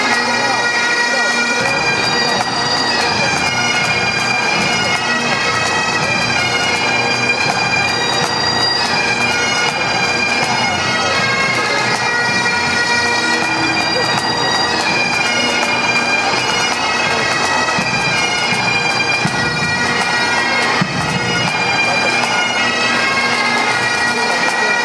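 Pipe band playing: Great Highland bagpipes with their steady drones under the melody, backed by a bass drum and snare drums.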